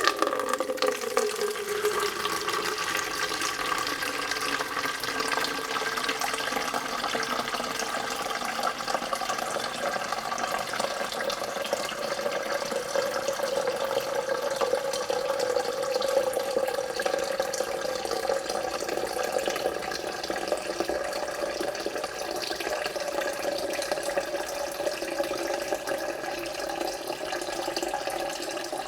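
A stream of water filling a jug: steady splashing with a ringing tone that rises slowly as the water level climbs.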